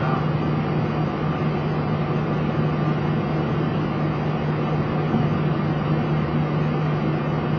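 Steady cockpit noise of a Boeing 737 taxiing with its engines at idle: an even rushing hiss with a constant low hum underneath.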